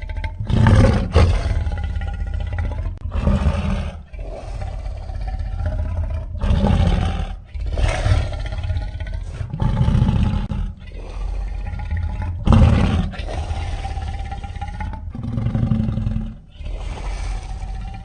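Custom King Kong giant-ape roar sound effects played one after another: about ten separate deep roars, each a second or two long, with a pitched cry over a heavy low rumble. Each roar starts and stops abruptly.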